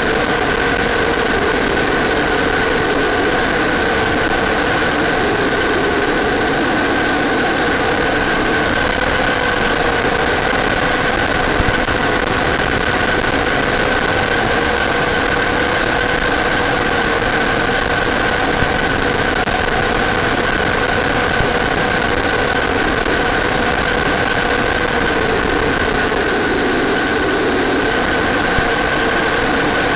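RC Avanti model jet's power unit running steadily in flight, heard from the onboard camera as a steady whine with air rush, its pitch dipping and shifting a little now and then as the throttle changes.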